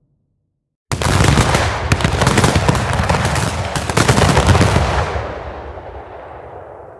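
Designed anime punch-barrage sound effect for the Stand Star Platinum: a dense, rapid-fire stream of impact hits that starts suddenly about a second in, runs for about four seconds, then fades out in a long dying tail.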